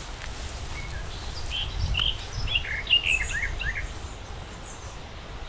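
A small bird singing a quick run of short chirping notes for about two seconds, over a steady low rumble.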